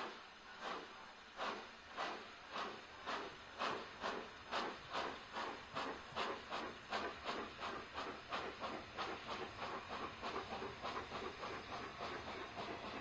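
Steam locomotive 'Tornado', a three-cylinder A1 Pacific, working hard with a regular chuffing exhaust whose beats speed up steadily as it gathers speed, from under two a second to about four a second.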